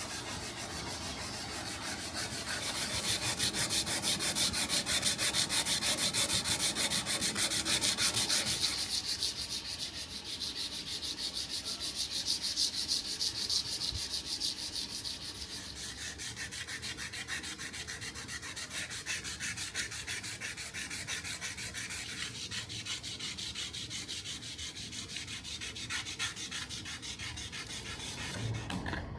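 Sanding: abrasive rubbing steadily over a surface, loudest between about three and nine seconds in.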